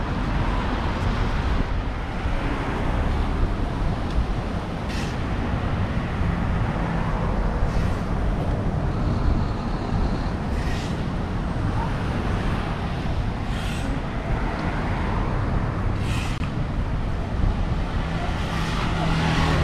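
Steady outdoor traffic noise, with a short hiss every two to three seconds.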